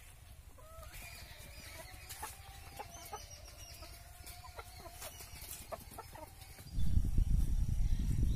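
Desi chickens clucking, with one long drawn-out call and short clucks over it. About seven seconds in, a loud low rumble of wind on the microphone suddenly takes over.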